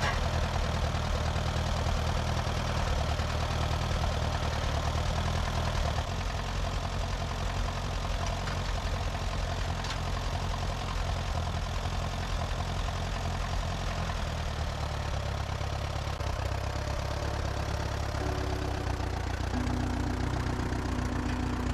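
Portable band sawmill's engine running steadily, its pitch shifting slightly about six seconds in.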